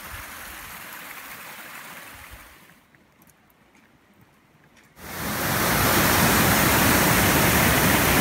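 Rushing water of a waterfall: a soft, distant rush for the first few seconds, a near-quiet gap, then a sudden loud, steady roar of falling water and spray from about five seconds in.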